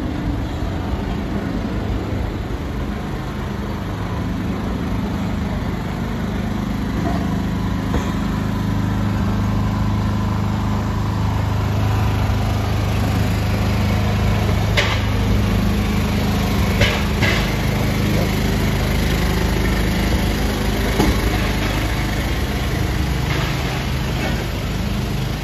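An engine running steadily with a low hum, louder through the middle stretch, with a few sharp clicks or knocks.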